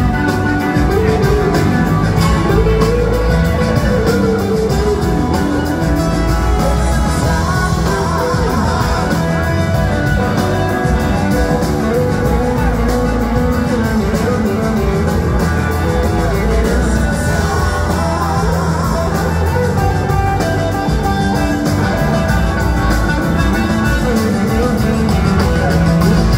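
Live blues-rock band playing a song in full: electric guitars over bass and drums, with singing. The sound is picked up from the audience by a phone.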